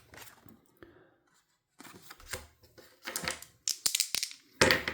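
Dice rolled onto a tabletop game surface: a series of short clatters, with a few sharp clicks about four seconds in and a louder clatter near the end.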